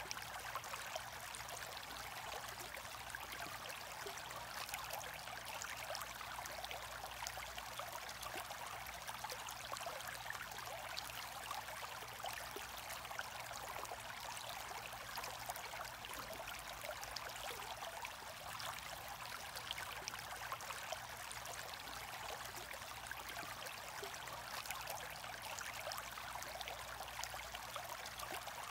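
Aquarium air stone bubbling: a steady fizz of small bubbles rising and popping at the water surface, with a faint low hum underneath.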